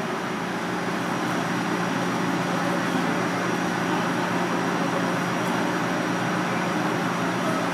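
Kitchen ventilation fan running: a steady rushing noise with a low hum and a thin, high, steady whine.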